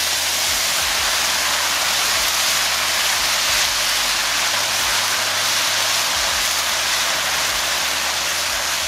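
Shredded chicken in a hot, oiled frying pan sizzling steadily as the chicken bouillon and warm water just poured over it boils off.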